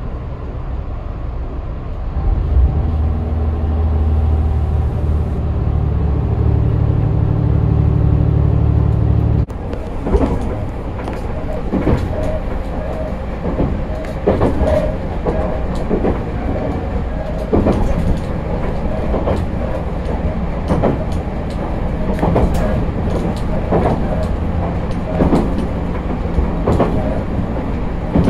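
Diesel railcar on the move: a steady low engine drone under power that drops away abruptly about nine seconds in. The train then rolls on with the rumble of running gear and wheels clicking over rail joints about once a second.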